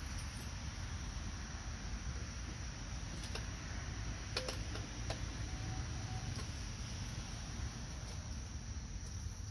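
Crickets chirring in a steady high-pitched drone over a low background rumble, with a few faint clicks a few seconds in.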